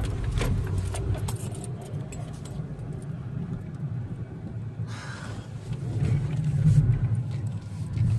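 A car's engine and road rumble heard from inside the moving car, low and steady, swelling a little near the end, with light rattling and clicks.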